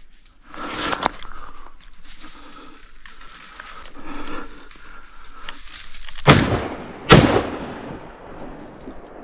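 Two gunshots fired in quick succession, under a second apart, each with a short ringing tail, during a hunt. Softer, irregular rustling noise comes before them.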